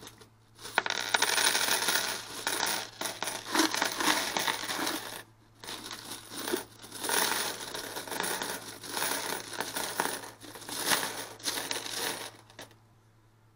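Loose coins clattering as they are tipped out of a plastic jar onto a wooden table, a dense run of metallic clinks with a brief pause about five seconds in. The clatter stops about a second before the end.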